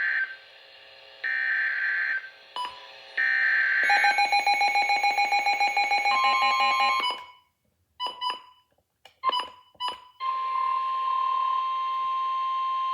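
Emergency Alert System tones: short buzzy data bursts, then a fast rhythmic electronic chime pattern, a few brief beeps, and from about ten seconds in a single steady alert tone.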